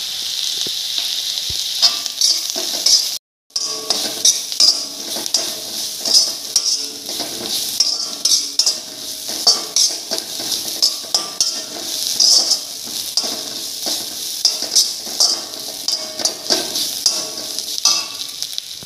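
Prawns, onion and ground spices frying in butter in a pan, with a steady sizzle, while a utensil stirs and scrapes against the pan in a repeated rhythm; the spices are roasting until fragrant. The sound cuts out for a moment about three seconds in.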